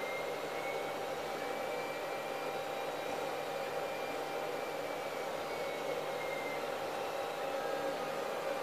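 Steady machine noise in the room: an even hiss with a constant hum and a faint high whine that fades out about two-thirds of the way through.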